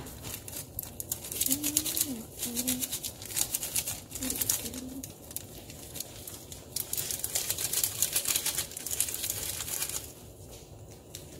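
Dried flakes shaken from a foil noodle-kit packet into a dry nonstick saucepan over a gas flame, pattering and crackling on the hot pan in dense rapid ticks, with the packet crinkling. It thins out and quietens about ten seconds in.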